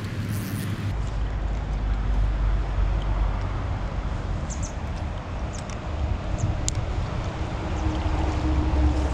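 Wind rumbling on the microphone of a body-worn camera, a low, uneven buffeting over a steady outdoor hiss, with a few faint high ticks.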